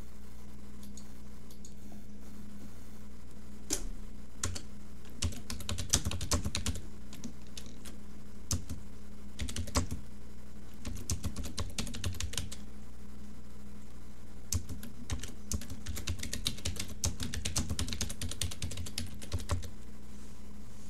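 Computer keyboard typing, starting about four seconds in: runs of quick keystrokes broken by short pauses, over a steady low hum.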